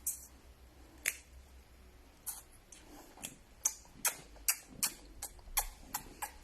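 A run of sharp clicks and taps from items being handled, a few scattered at first, then coming two to three a second from about halfway in.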